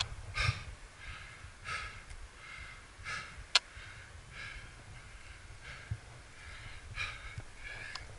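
A climber breathing in quick, short breaths close to the microphone, about one every two-thirds of a second, with a single sharp click about three and a half seconds in.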